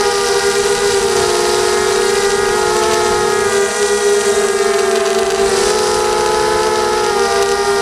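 ZMR250 mini quadcopter's Sunnysky 2204 brushless motors and propellers whining in flight. Several close pitches glide up and down together with the throttle, over a steady hiss of wind and prop wash.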